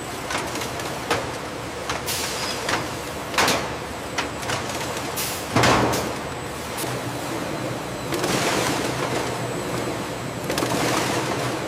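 Food-processing line machinery running: a steady mechanical noise with irregular clicks and clanks, the loudest about five and a half seconds in, and hissing swells near the end.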